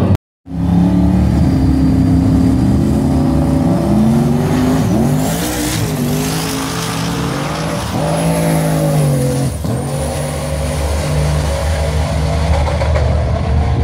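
Drag-racing car engines at full throttle on the strip, their pitch climbing and then dropping sharply at each gear change, with a thin high whine climbing above the exhaust note. A split-second cut-out comes just before the engines start.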